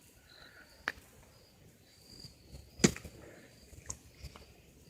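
Faint high-pitched chirring of evening insects, with three sharp clicks about a second in, near three seconds and near four seconds; the one near three seconds is the loudest.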